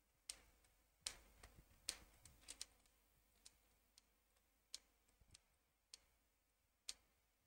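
Faint, sharp computer mouse clicks, about a dozen scattered irregularly, a few in quick runs.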